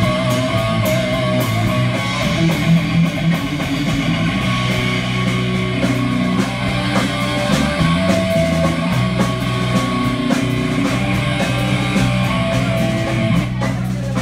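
Live rock band playing an instrumental passage: electric guitar lines over bass guitar and drum kit, with heavier drum hits near the end.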